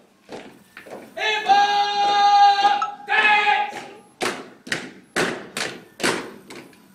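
Boots of a squad marching in step on stone paving, knocking about twice a second. About a second in, and again shortly after, a drill command is shouted as a long drawn-out call held on one pitch, louder than the footsteps.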